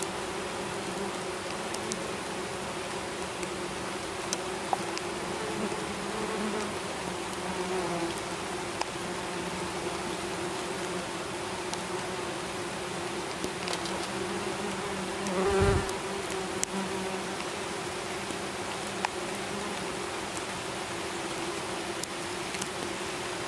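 A swarm of wasps buzzing with a steady hum, briefly louder about two-thirds of the way in.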